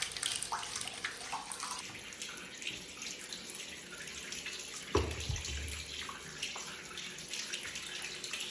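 Shower water running and splattering, with a single dull thump about five seconds in.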